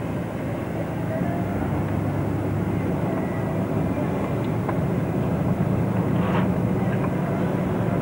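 Car engine and road noise heard inside the cabin, a steady low drone that grows slightly louder as the car gathers speed.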